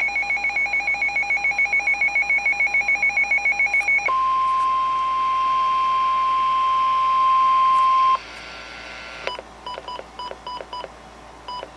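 Emergency alert tones for a flood warning. A fast-pulsing electronic alarm beep sounds for about four seconds, then a single steady high tone is held for about four seconds, like the weather-radio warning alarm tone. A run of softer short beeps follows.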